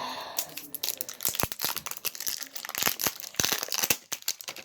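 Close crinkling and crackling as a slime container and its contents are handled, with many small sharp clicks and crackles that die away near the end.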